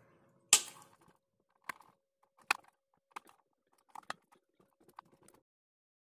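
Wire cutters snipping through the light fitting's electrical wire: one sharp snap about half a second in. A handful of fainter clicks and ticks follow from the tool and wires being handled.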